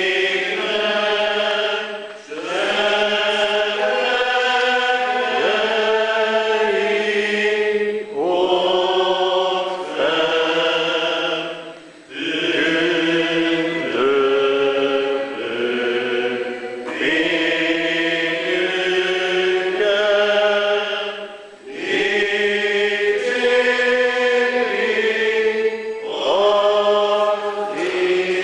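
Church congregation singing a slow hymn together, holding long notes in phrases of a few seconds with brief breaths between them.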